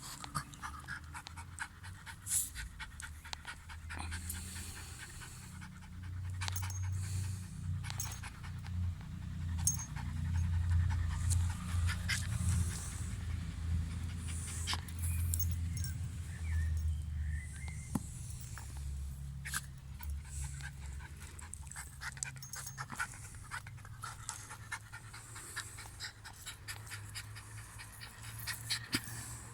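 An 11-month-old dog panting hard, with short sharp clicks and taps scattered throughout.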